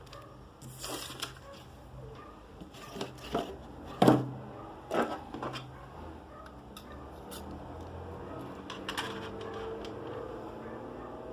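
Hands handling card-game packaging: a series of clicks, taps and scrapes of cardboard and plastic, the loudest knock about four seconds in, then quieter rustling.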